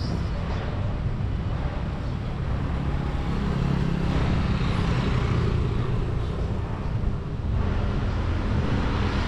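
Street traffic: a vehicle engine running close by, louder in the middle and then easing off, over a steady hum of road noise.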